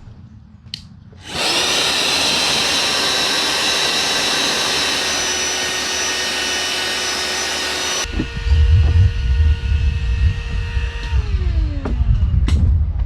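A small electric motor, like a camping air pump or blower, starts about a second in and runs steadily with a whirring rush and a high whine. Later the rush drops away, a heavy low rumble sets in, and the motor's whine winds down and fades.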